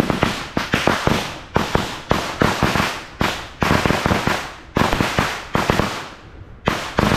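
Loud, rapid crackling pops in repeated bursts, each burst fading within about a second, with a short pause about six seconds in.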